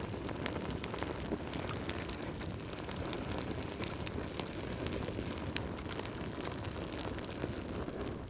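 Wood fire burning in a fireplace: a steady low rumble of flames with many irregular sharp crackles and pops.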